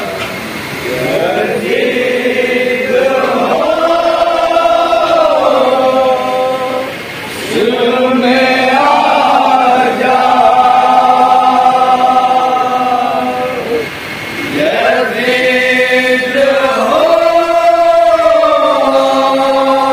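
A group of men reciting a Shia noha, an Urdu mourning lament, together in a chanted melody with long held notes. It comes in three long phrases, with short breaths between them about a third and two thirds of the way through.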